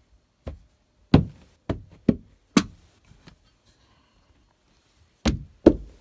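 A hammer knocking at the carpet edge along the baseboard during carpet re-stretching. There are five sharp knocks in the first three seconds or so, then a pause, then two more near the end.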